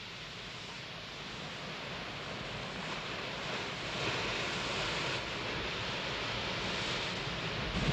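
Sea surf washing in among rocks, a steady rushing noise that grows louder about halfway through.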